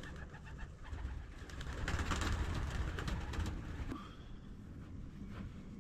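Frost cloth rustling as it is pulled off a garden bed, loudest from about two to four seconds in, over a low rumble, with a dove cooing.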